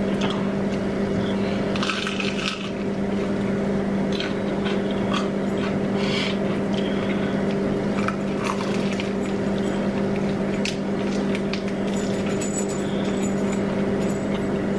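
Close-up eating sounds: biting into and chewing crunchy fried chicken, with short crackles and mouth noises every second or two, over a steady low hum.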